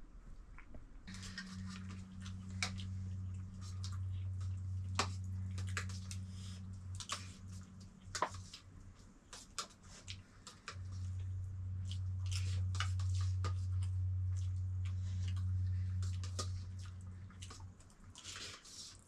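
Cat purring close to the microphone, a low steady purr that breaks off briefly about halfway through, with small clicks and crackles over it.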